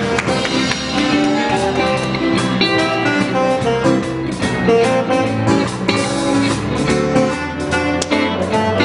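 Guitar music with plucked and strummed notes.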